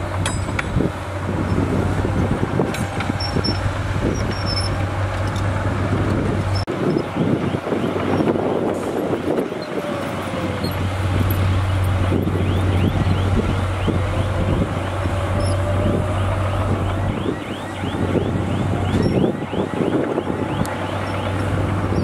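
Heavy diesel machinery at work: a crawler bulldozer's engine running as it pushes dirt, then a dump truck running as it tips a load of earth out of its raised bed. A steady low engine drone fades out for a few seconds near the middle and comes back.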